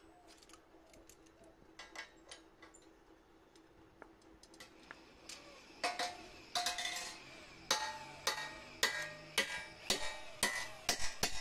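Claw hammer striking a steel flat bar against a steel block, bending it into a square clamp, each blow ringing metallically. Light taps and clinks in the first few seconds, then heavier ringing blows from about six seconds in, coming faster, two or three a second near the end.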